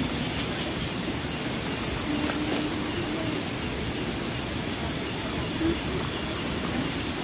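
Cicadas keep up a steady high-pitched drone over a low, even rumble, with faint voices in the background.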